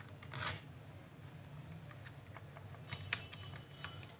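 Small clicks and scrapes of a screwdriver turning screws out of the plastic handle of a handheld metal detector, with a short scraping rustle about half a second in and a few sharp ticks around three seconds and near the end.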